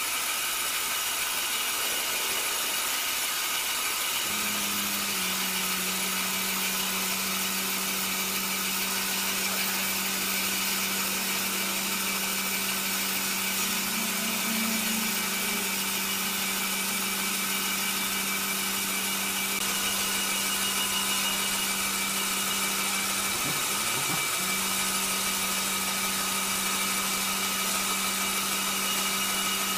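Horizontal band sawmill running and sawing through a large block of wood: a steady hiss with several high whining tones. A low steady hum joins about four seconds in.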